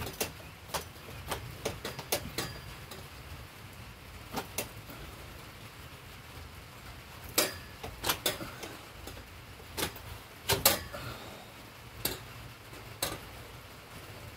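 Metal tent-frame poles clicking and clanking as they are twisted and worked apart at their joints: irregular sharp knocks, several in quick pairs, the loudest a little past halfway.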